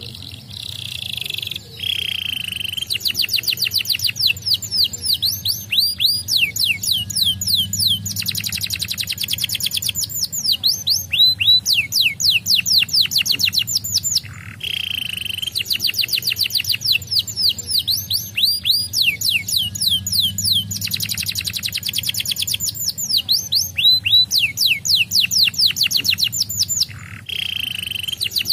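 Domestic canary singing a long, fast song: runs of rapid falling notes repeated several times a second, mixed with short buzzy rolls. The song breaks off briefly near the start, about halfway, and near the end.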